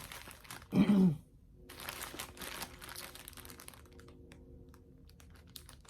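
Plastic packaging crinkling and rustling as a diamond-painting canvas is handled, with a short vocal sound about a second in.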